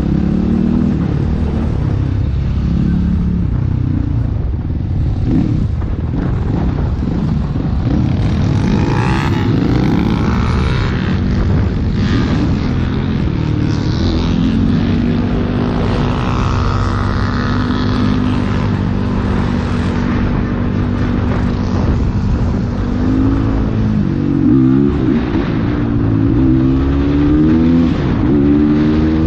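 Motorcycle engine running under way, its pitch holding steady for several seconds and then rising and falling near the end as the throttle changes.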